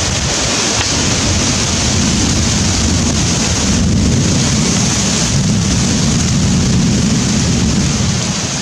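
Wind buffeting the microphone: a loud, steady rushing noise.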